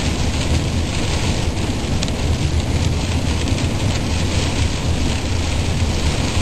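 Steady road and engine noise heard from inside a moving car: a low rumble under an even hiss.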